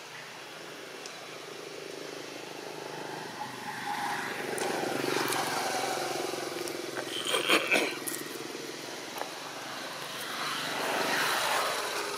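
A motor engine, as of a passing vehicle, whose hum swells and fades twice, with a short cluster of sharp clicks about halfway through.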